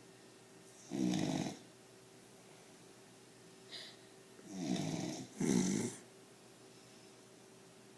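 Pit bull puppy snoring in its sleep, deep and rasping like a grown man: one snore about a second in, then two more back to back around the middle.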